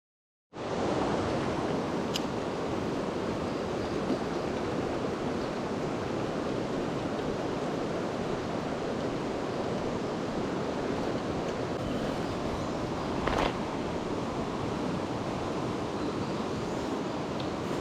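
Mountain stream water rushing steadily, with a faint tick about two seconds in and a short knock about thirteen seconds in.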